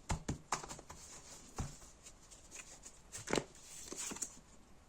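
Tarot cards being handled: a scattering of soft taps and flicks as cards are shuffled and laid down, with a few sharper taps about a second and a half in and after three seconds.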